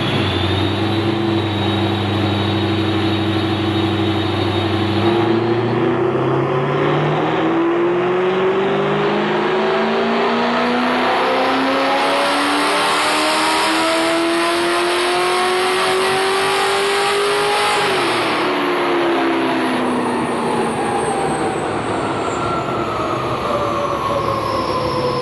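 Cammed 5.7-litre LS1 V8 of an HSV VY Clubsport on a chassis dyno: held steady for about five seconds, then a full-throttle pull with the engine note climbing for about twelve seconds. It then drops off sharply and winds down with a falling whine. Engine detonation (knock) comes near the end of the pull.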